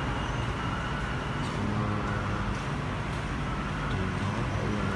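Steady low rumble of road traffic, a continuous din with a faint hum in it.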